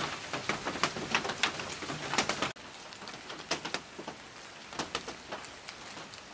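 Rain pattering, dotted with sharp ticks of drops striking nearby surfaces; about two and a half seconds in it cuts abruptly to a quieter, sparser patter.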